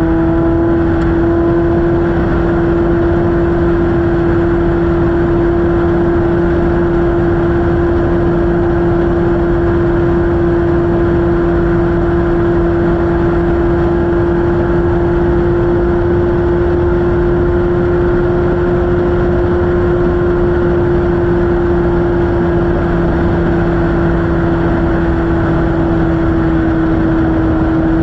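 An off-road race car's engine, heard onboard at speed, held at nearly steady revs with a strong even tone whose pitch eases slightly near the end. Under it is a dense noise of wind and the ride over rough ground.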